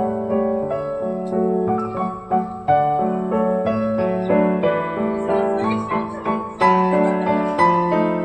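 Background piano music: a gentle melody of notes about half a second apart over held chords.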